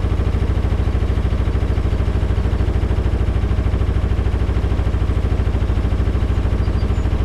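Narrowboat engine running steadily under way, a loud, even, rapid low pulse.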